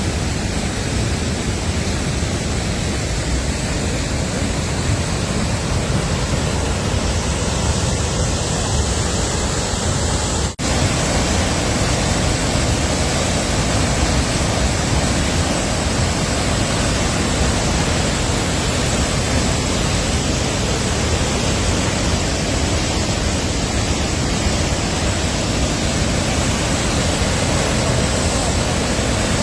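Large glacier-fed waterfall rushing in a steady, loud roar of water. The sound drops out for an instant about ten seconds in.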